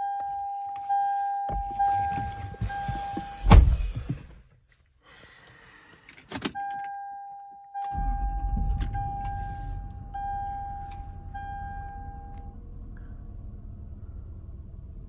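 2003 Lexus LX470's 4.7-litre V8 started with the dash warning chime beeping repeatedly: a first brief run is cut off with a loud clunk about three and a half seconds in, then the engine catches again about eight seconds in and settles to a steady idle. The chime stops a few seconds after the second start.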